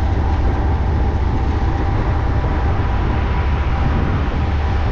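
Freight train of tank cars rolling past, a steady loud rumble of wheels on rail, heard from a moving vehicle pacing it, with deep wind and road rumble mixed in.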